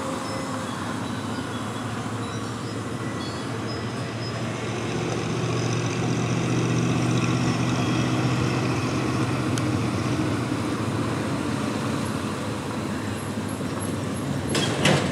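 Road traffic noise, with a motor vehicle's low engine hum swelling through the middle and easing off again, and a couple of sharp clicks near the end.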